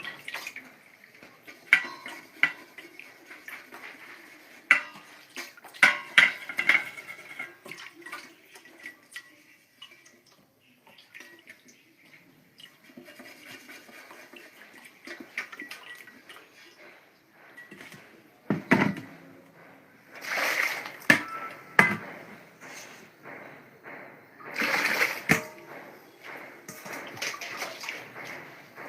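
Water splashing and sloshing in bursts, with frequent clatter and knocks of things being handled in it, like hand-washing in a sink or basin.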